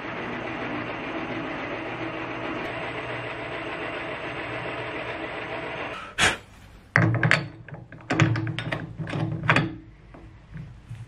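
Metal lathe running as a twist drill bores into an aluminium workpiece, a steady mechanical noise with a low hum. About six seconds in it stops, and a run of sharp metallic clacks and knocks follows as a tool holder is handled and clamped on the quick-change toolpost.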